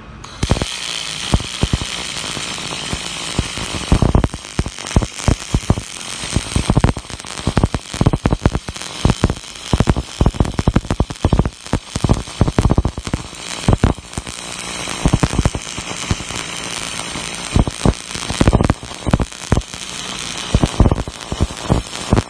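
Robotic cold metal transfer MIG welding arc on a stainless steel exhaust pipe: a steady hiss packed with irregular crackling, starting a moment in and running on without a break.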